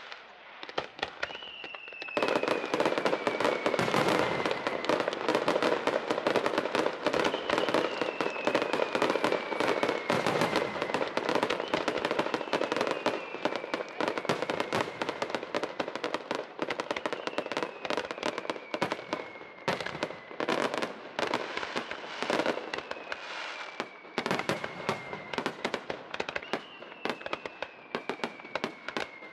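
Fireworks display in a rapid-fire sequence: dense cracking and popping of many shells launching and bursting, which starts about two seconds in after a brief lull. A thin falling whistle-like tone repeats about every five seconds over it.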